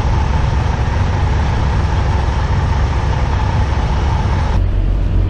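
Semi-truck's diesel engine running during a low-speed backing manoeuvre, heard from inside the cab as a steady low sound under a constant hiss. About four and a half seconds in, the hiss cuts off abruptly and only the low engine sound remains.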